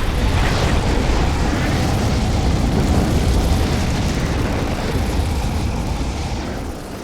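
A loud, deep rumbling roar of noise from a cinematic sound effect. It swells up, holds for several seconds and dies away near the end.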